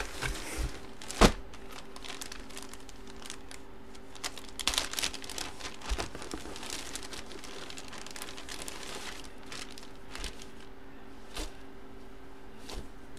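Clear plastic bag crinkling and rustling in irregular bursts as a jersey is handled and slid out of it, with one sharp snap about a second in. A faint steady hum sits underneath.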